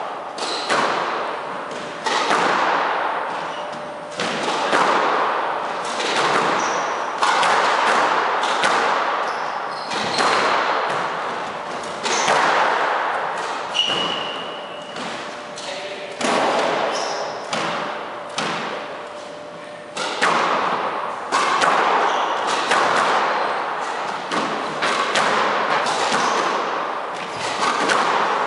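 Squash rally: the ball is struck hard with rackets and smacks off the court walls, a sharp hit every second or so, each one ringing on in the enclosed court.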